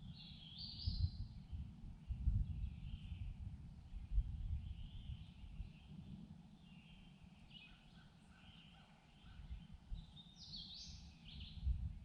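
Songbirds singing a series of short chirping phrases, with a cluster at the start and another near the end, over a steady uneven low rumbling noise.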